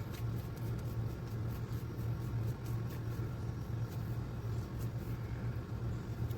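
Steady low hum, with faint soft ticks and rustles over it.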